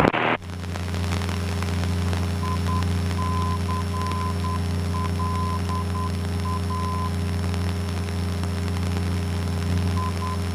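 Cessna 172N's four-cylinder Lycoming engine and propeller droning steadily at climb power. A faint tone beeps on and off in short and long pulses for a few seconds in the middle and again near the end.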